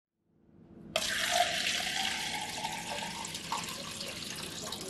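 Water poured in a thin stream into a clear plastic cup, starting suddenly about a second in: a steady splashing pour with a faint tone that rises slightly as the cup fills.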